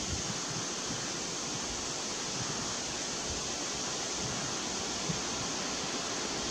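Steady outdoor background hiss, brightest in the high range, with no bird calls. There are faint low bumps near the start and about five seconds in.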